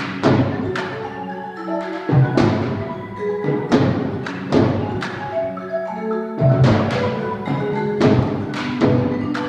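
Percussion ensemble playing marimba and drums: repeated loud struck accents with heavy low drum hits, and pitched mallet notes ringing on between them.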